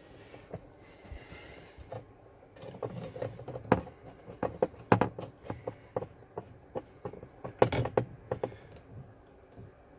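Scattered clicks, knocks and clinks of metal parts being handled and fitted together, in small clusters about four to five seconds in and again near eight seconds.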